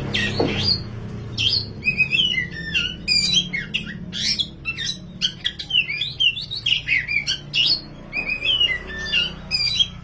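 Black oriental magpie-robin (kacer wulung) singing hard: a fast, unbroken run of varied whistles and chattering notes, over a low steady hum.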